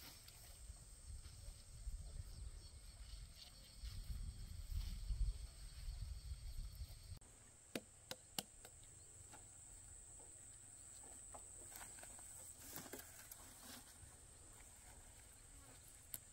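Insects chirring in a steady high-pitched drone, with low rumbling in the first half and a few sharp clicks about eight seconds in.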